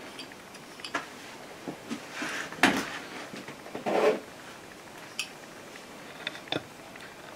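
Steel palette knife working oil paint: light clicks and taps of the blade, with two longer scrapes of the knife a couple of seconds and about four seconds in.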